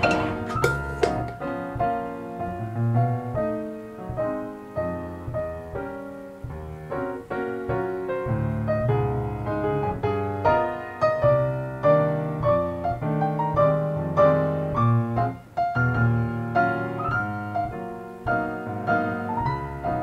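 Background piano music: a gentle melody of single notes over low bass notes.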